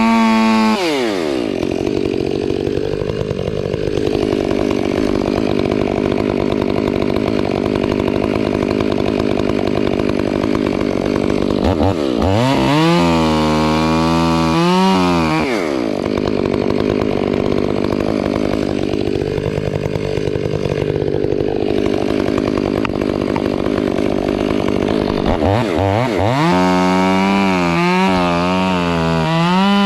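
Two-stroke chainsaw cutting through wood in two long stretches, with the engine revving freely between the cuts and again near the end.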